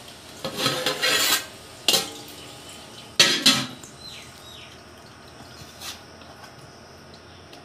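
Aluminium pot lid scraping and clanking against a large aluminium cooking pot as it is taken off, with two loud metal clanks about three seconds in, then a lighter knock of a metal ladle against the pot near the end.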